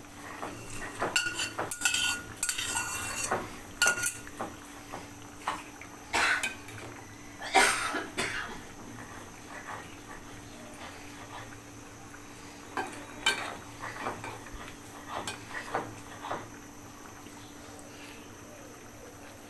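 Metal utensils clinking and scraping against an aluminium cooking pot as fried fish is slid in from a steel bowl and a metal spatula moves it through the curry. A quick run of clinks and knocks fills the first half, the loudest about seven seconds in, then only scattered taps.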